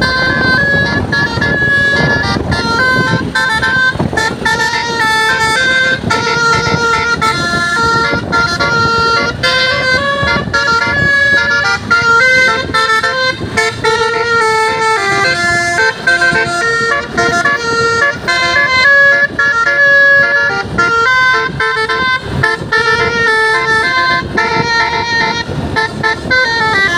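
Telolet basuri multi-tone bus horn playing a tune: a continuous run of short and held horn notes stepping up and down in pitch.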